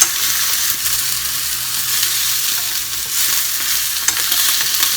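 Chicken wing pieces sizzling steadily in hot vegetable oil in an uncovered pan on medium heat, frying until crispy, with a few light crackles.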